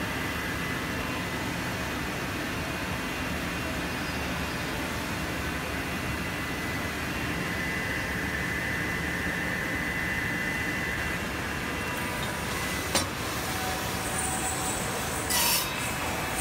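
Steady drone of woodworking factory machinery, electric motors and circular saws running, with a thin high whine over it. A sharp click comes about 13 seconds in and a short louder burst of noise about 15 seconds in.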